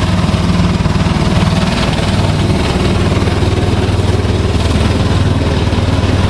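A pickup truck's engine idling steadily, with an even low hum and a fast regular beat.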